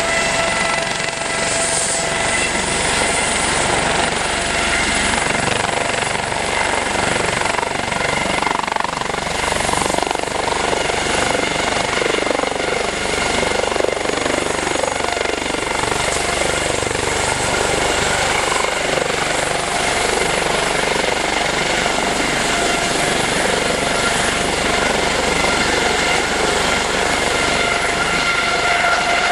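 Aérospatiale SA365N1 Dauphin helicopter lifting off into a low hover and turning, its turbines and rotors running loud and steady, with a steady high whine over the rotor noise.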